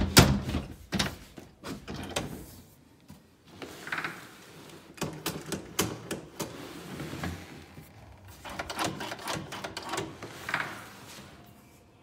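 Lever handle and latch of a Secustone keyless door lock being worked: a loud thump at the start, then runs of clicks and rattles as the lever is turned and the door moved.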